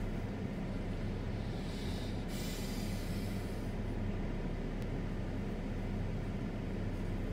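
A steady low mechanical rumble and hum that does not change in level, with a brief rise of hiss about two to three and a half seconds in.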